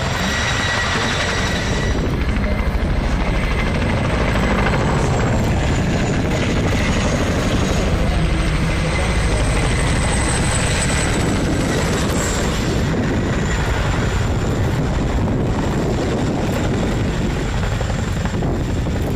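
Boeing Chinook tandem-rotor helicopter flying low: a loud, steady, rapid chop from its two rotors with a thin high turbine whine over it that wavers slightly in pitch.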